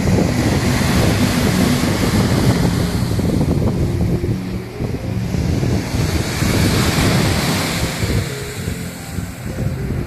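Sea surf breaking on a sandy beach, a continuous wash of waves, with wind buffeting the microphone.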